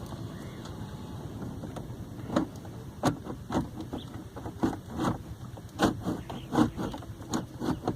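Handling noises from work on car stereo wiring: scattered short clicks and knocks, about eight of them from a couple of seconds in, over a steady low hum.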